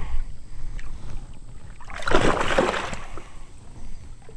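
A hooked catfish splashing once at the surface beside the boat, a rushing splash of about a second starting about two seconds in, over a low rumble of wind on the microphone.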